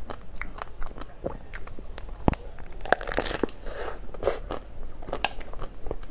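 Chocolate shell of an ice cream bar cracking and crunching as it is bitten and chewed, a run of many short sharp crackles with one louder snap a little over two seconds in.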